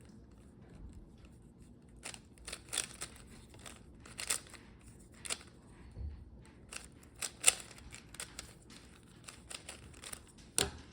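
Magnetic 3x3 Rubik's cube being turned by hand: irregular plastic clicks and snaps of its layers, in quick clusters with short pauses, the sharpest snap about two-thirds of the way through.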